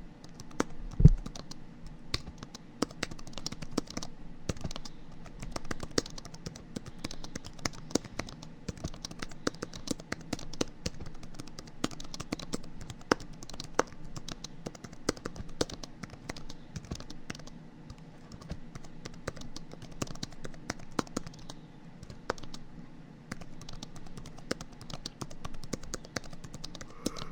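Typing on a computer keyboard: dense, irregular key clicks over a faint low hum, with one louder knock about a second in.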